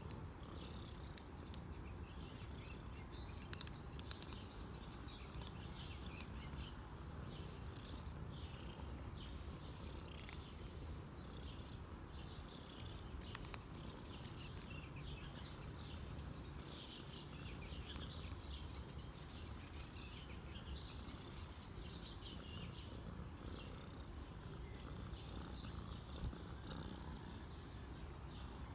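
Domestic cat purring steadily, a continuous low rumble, while being stroked on the head and neck.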